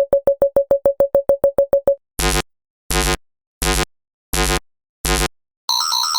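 Synthesized science-fiction alarm sounds, one after another. First comes a rapid single-pitch beeping at about seven beeps a second for two seconds, then five buzzy tone pulses about 0.7 s apart. Near the end a continuous, fast-warbling high electronic alarm begins.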